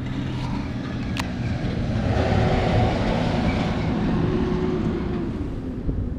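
A motor running steadily, a low hum with a rushing noise over it, swelling in the middle and easing off near the end.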